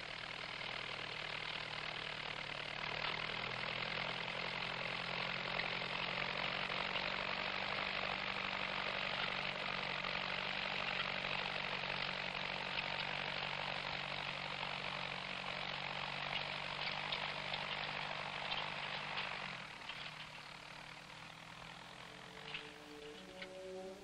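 Farm tractor engine running steadily as it pulls tillage gear across a field. It fades out a few seconds before the end, and music begins at the very end.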